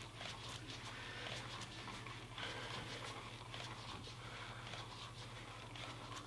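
Quiet room tone: a steady low hum with faint scattered ticks and rustles as a person works a resistance band.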